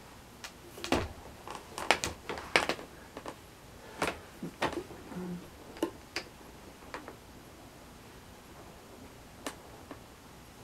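Irregular light clicks and taps in a small room, coming quickly in the first few seconds, then thinning out to an occasional one.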